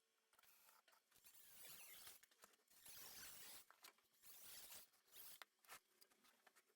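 Faint, irregular scratching and rustling with short clicks.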